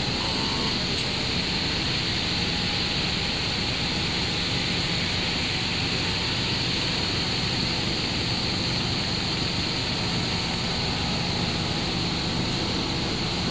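Four-screw cast stretch film extrusion line running: a steady, unbroken machine noise with a constant hiss and a low hum.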